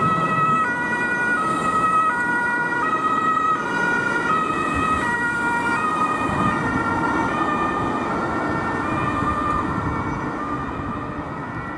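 Two-tone sirens (Martinhorn) of German fire brigade vehicles responding, the high and low notes alternating, with more than one siren sounding out of step, over road traffic noise. The sound eases slightly near the end.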